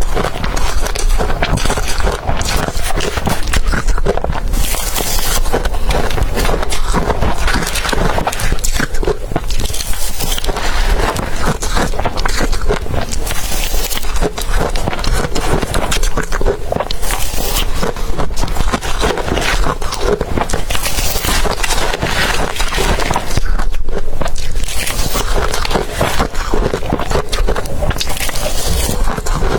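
Blended ice being bitten and crunched, a dense, continuous crackle broken by a brief pause about 24 seconds in.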